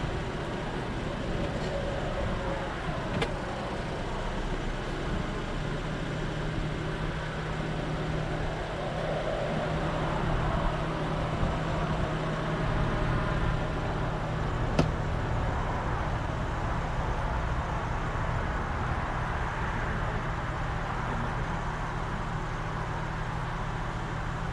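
Idling car heard from inside the cabin: steady engine and road-noise hum, with a low steady tone that strengthens about five seconds in, and a sharp click about fifteen seconds in.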